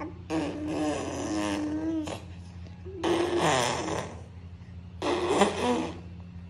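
A toddler blowing raspberries with her lips, making fart-like buzzing noises three times with short pauses between.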